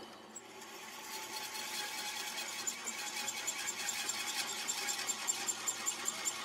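A workshop machine or power tool running steadily, growing louder over the first couple of seconds, with a quick regular ticking.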